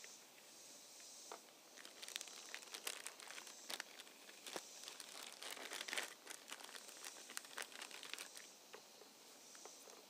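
Faint crinkling and rustling of small clear plastic bags of hydraulic seals handled in gloved hands, with a few light clicks and ticks as parts are set down on a steel workbench.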